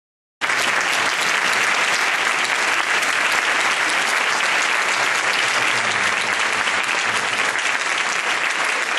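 Audience applauding steadily in a hall, a dense patter of many hands clapping that cuts in abruptly about half a second in.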